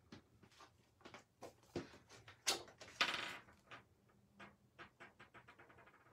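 Cardstock being handled and slid on a table: scattered rustles and light taps, with a louder scrape about two and a half to three seconds in. Then a run of small quick ticks as a liquid glue applicator is dabbed along the edge of a cardstock panel.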